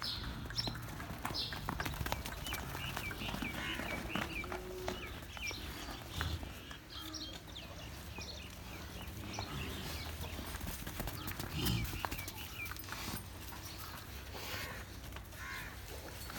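A bull's hooves clopping and knocking on hard ground as it moves about, over a steady low hum with faint high chirps.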